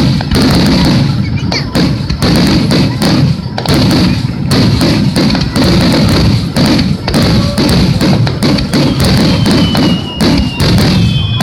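Fireworks shells bursting at close range in a rapid barrage: overlapping booms with crackling, and several whistling tones gliding downward near the end.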